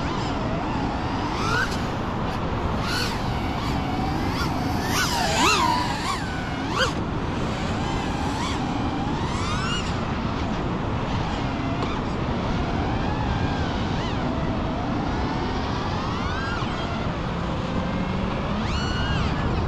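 A 5-inch FPV freestyle quadcopter's motors and propellers whining, the pitch swooping up and down again and again with the throttle, over a steady rushing background. The swoops come thickest about five to seven seconds in.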